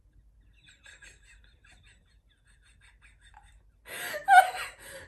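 Two girls laughing: faint, breathy giggles at first, then a burst of loud laughter about four seconds in.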